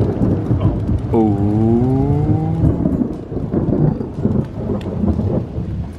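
Thunder rumbling close overhead over heavy rain. About a second in, a drawn-out pitched sound rises and holds for under two seconds.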